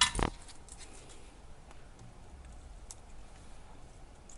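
Light handling noises of hands working on the wires and battery pack: a sharp knock at the start, then scattered faint ticks and clicks.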